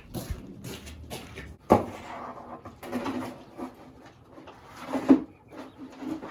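Knocks and scraping as the droppings trays under a rabbit hutch are handled, with a sharp knock about two seconds in and another near five seconds.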